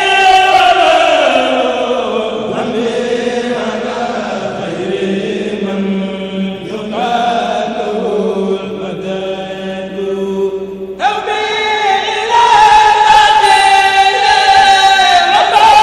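A group of men chanting a Mouride khassida in unison. Their voices glide down over the first few seconds into a long low held note, then about eleven seconds in a high lead voice cuts in and the chant grows louder.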